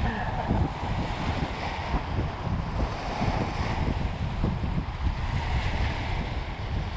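Small waves breaking and washing over the rocks of a jetty, with wind buffeting the microphone.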